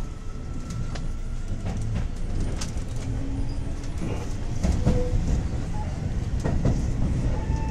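Metro train running on its rails: a steady low rumble with scattered clicks and knocks from the wheels and cars, and a few brief short squeaks.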